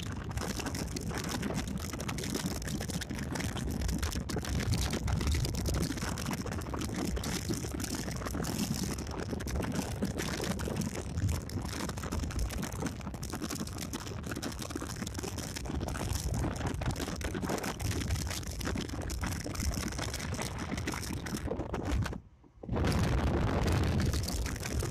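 Wind rushing and buffeting on the microphone, with road noise from a moving car; it cuts out briefly near the end.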